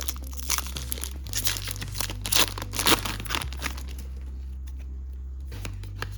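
Foil Pokémon booster pack wrapper being torn open and crinkled, with several sharp rips in the first few seconds, then quieter rustling.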